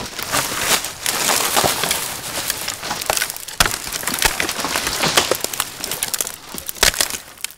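Leafy tree branches and twigs scraping, cracking and snapping against the sailboat and the camera as the boat pushes into overhanging trees. It is a dense crackle with many sharp snaps.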